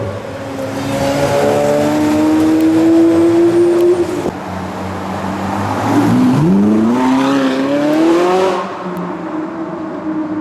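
Supercar engine accelerating hard: its pitch climbs for about three seconds, breaks off near four seconds in, then dips and climbs again from about six seconds in before falling away and fading.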